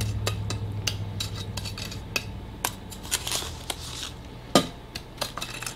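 A chef's knife scraping and tapping against a small cup, knocking brown sugar out into a crock pot: a string of light clicks and short scrapes, the sharpest about three-quarters of the way through.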